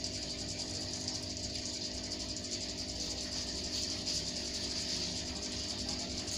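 Aquarium pump running with a steady hum, under a constant hiss of water and air bubbles.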